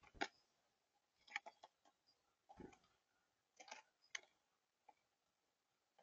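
Faint, irregular light taps and clicks, about one a second, with one duller thump about halfway: a mourning dove pecking seed on a platform bird feeder.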